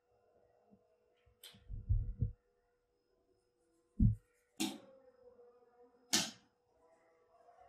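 Hands working dough on a countertop: dull thumps as dough is pressed and set down, about two seconds in and again at four seconds, and a few short, sharp swishes as hands brush through dry flour. A faint steady hum runs underneath.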